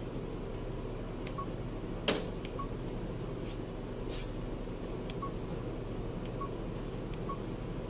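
Short, high electronic beeps repeating about every one to two seconds over a steady low hum, with one sharp click about two seconds in.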